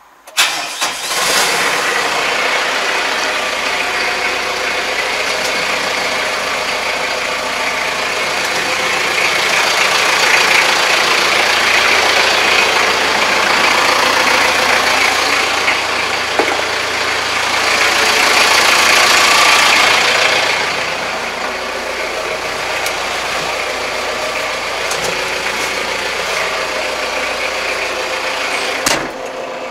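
Kubota MZ755 tractor's diesel engine running steadily. It comes in abruptly about half a second in, is a little louder between about ten and twenty seconds in, and a single sharp knock sounds near the end.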